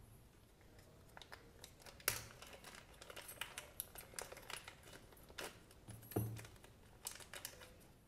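Small clear zip-lock plastic bag handled and opened by hand: faint crinkling with scattered clicks, and a couple of sharper clicks about two seconds and six seconds in.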